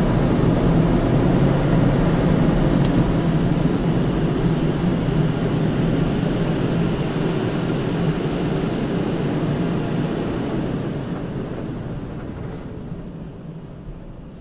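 Automatic car-wash machine running with a steady, loud rushing noise, fading away over the last few seconds.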